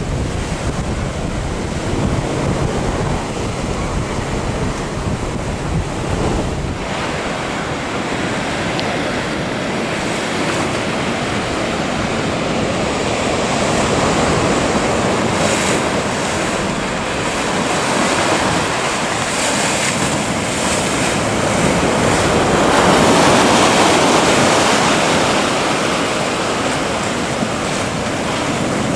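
Rough surf breaking and rushing, with wind buffeting the microphone. A boat's outboard motor hums low under it for the first several seconds, and the surf swells loudest about three-quarters of the way through.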